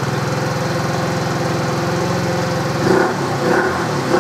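Viper Storm 50 scooter's 139QMB four-stroke single-cylinder engine idling steadily, then revved up and down a couple of times about three seconds in.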